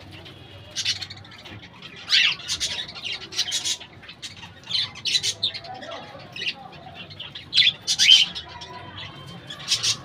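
A flock of budgerigars chattering: short, high, scratchy chirps and squawks in irregular clusters, with the loudest bursts about two seconds in and near the end.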